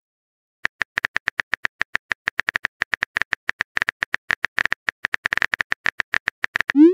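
Texting-app keyboard typing clicks, a quick even run of about seven taps a second as a message is typed, each tap with a light tone to it. Near the end there is a short rising whoosh as the message is sent.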